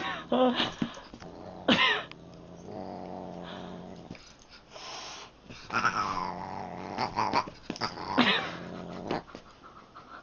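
Growling and a few short sharp cries from a Siamese cat and a large dog play-fighting. The growls run in long stretches in the middle and later part, and there is a brief wavering cry just after the start.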